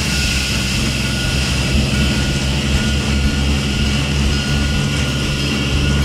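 Cartoon sound effect of a fire hose's water jet spraying: a steady hiss that cuts off near the end, over background music.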